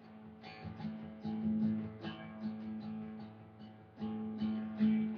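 Acoustic guitar strummed with no singing, at roughly three strokes a second over sustained chords.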